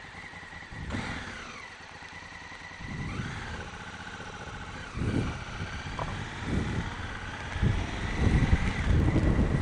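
Honda Africa Twin CRF1000L parallel-twin engine pulling away from a stop, its pitch rising as it accelerates. Wind rumble on the helmet microphone builds in the last couple of seconds as the bike gathers speed.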